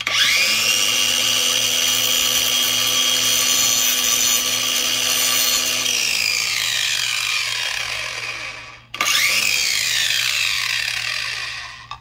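Cordless angle grinder grinding the head off a rivet pin on a 520 X-ring motorcycle chain, so the pin can be pushed out to shorten the chain. The motor whine spins up at once, holds steady for about six seconds with grinding noise, then winds down; a second shorter burst starts about nine seconds in and spins down near the end.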